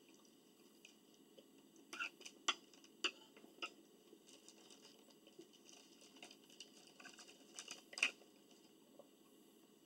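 Quiet mealtime eating sounds: scattered soft clicks and taps of utensils and dishes with mouth noises, a cluster of them between about two and four seconds in and a sharper one near eight seconds, over faint room hiss.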